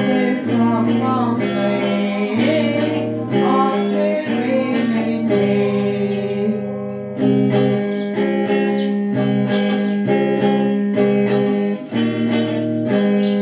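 A woman sings to a strummed electric guitar. Her voice stops about halfway through, and the guitar plays on alone in strummed chords, ending on a held chord near the end.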